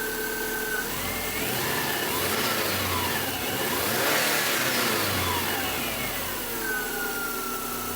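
1999 Subaru Outback's 2.5-litre boxer four-cylinder engine, running after a fuel filter change. It idles briefly, is revved up to a peak about halfway through, then falls back toward idle, and it sounds decent.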